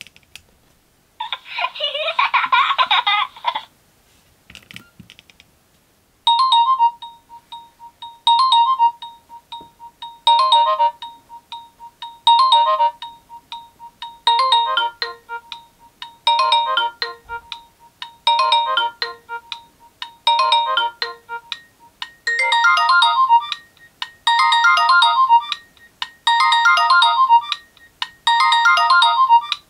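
Nokia N70 ringtone: a short electronic melodic phrase repeating about every two seconds, gaining extra layers and sounding fuller from about twenty seconds in. Before it starts, a separate dense tone sounds for a couple of seconds about a second in.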